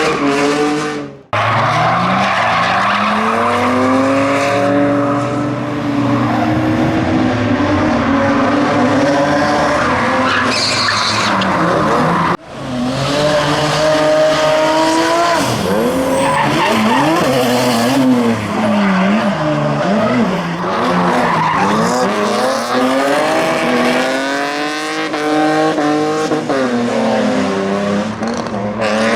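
Drift cars' engines revving hard and rising and falling in pitch as the tyres squeal and skid through slides. The sound cuts out abruptly twice, once about a second in and again near the middle.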